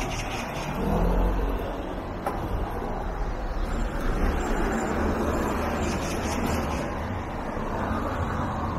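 Road traffic on a city street: cars running by in a steady low rumble.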